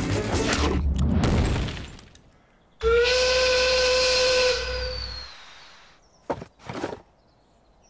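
A loud, steady whistle over hissing noise, starting about three seconds in and lasting about two and a half seconds before fading. Before it a rushing noise dies away, and two short swishes follow near the end.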